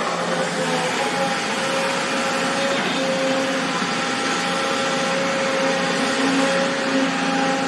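Excavator's diesel engine and hydraulics running steadily, a continuous machine drone with a few held tones that shift slightly in pitch.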